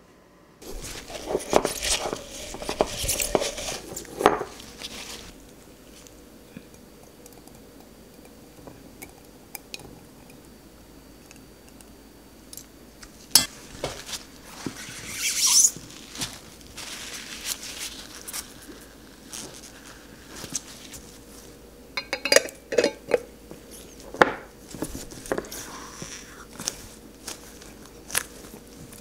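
A utensil scrapes and clinks against a pot and a glass jar as blueberry jam is spooned into the jar, busiest in the first few seconds, then scattered knocks. Near the end comes a run of clicks and scrapes as a lid is screwed onto the glass jar.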